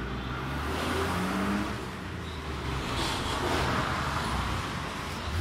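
Road traffic: car engines running steadily, swelling a little past the middle.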